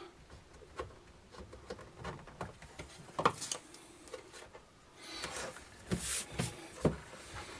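Faint handling noises from an opened oscilloscope's metal chassis on a bench mat: a few light clicks and knocks as hands work at its internal connector, then rubbing and scraping about five seconds in as the instrument is turned around on the bench.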